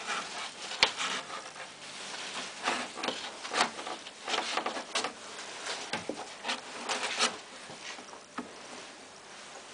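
Irregular rubbing and scraping strokes from cleaning a Samsung washing machine's plastic detergent drawer, the strokes thinning out near the end.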